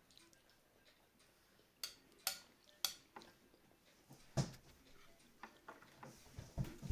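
Spoon clinking against a bowl three times in quick succession, then a louder dull knock about four seconds in and a few soft knocks near the end.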